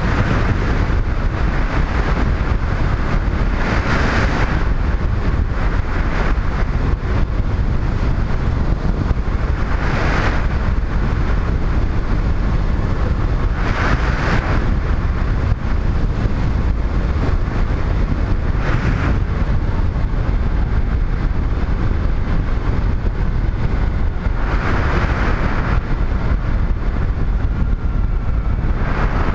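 Motorcycle riding at road speed: steady wind rush over the helmet-mounted microphone with the engine and tyre noise beneath it. A hiss swells briefly several times.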